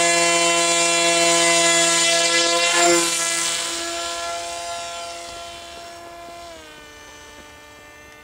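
Brushless electric motor of an RC model plane running at high throttle with a steady high-pitched whine. The plane is hand-launched about three seconds in, and the whine then fades as it flies away. It steps down in pitch about six and a half seconds in.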